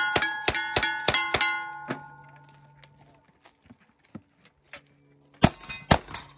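Rapid revolver shots at steel targets, about four a second, each hit leaving the plates ringing. The string ends about a second and a half in and the ringing dies away. After a pause, two rifle shots about half a second apart ring the steel again near the end.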